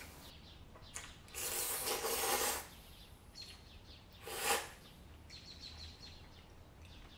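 A person slurping noodles in cold soybean broth: a slurp lasting about a second, starting about a second and a half in, and a shorter one about four and a half seconds in.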